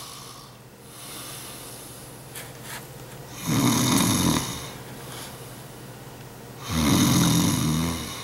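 A man snoring with his mouth open: two loud snores about three seconds apart.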